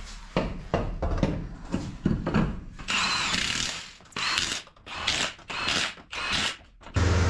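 Mechanic's tool work: a run of irregular ratchet-like clicks and rasps, then a steady low drone that starts abruptly near the end.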